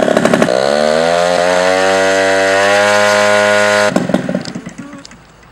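Aircraft engine on a test stand running loud, then settling into a steady tone that creeps slightly upward in pitch before cutting off suddenly about four seconds in, with a few clicks as it stops.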